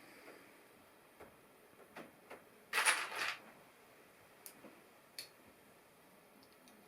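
LEGO plastic pieces being handled, with scattered small clicks and taps. About three seconds in there is a brief, louder rattle of pieces being rummaged through.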